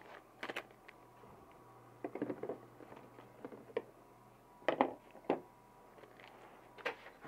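Cardboard packaging and small parts being handled: a scatter of short clicks, taps and rustles, with a few louder knocks a little past the middle.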